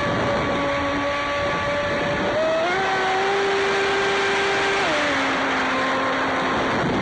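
Traxxas Spartan RC boat's brushless electric motor whining under a steady rush of water against the hull, heard from on board. The whine steps up in pitch about two and a half seconds in and drops back lower around five seconds in.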